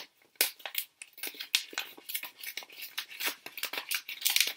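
A large paper envelope being handled and opened: a rapid, irregular run of paper crinkles and rustles, loudest just before the end.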